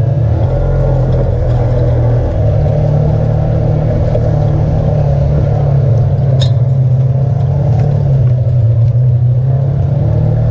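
Side-by-side UTV engine running steadily at low trail speed, heard from the vehicle itself, its pitch shifting a little with the throttle. A single sharp click about six and a half seconds in.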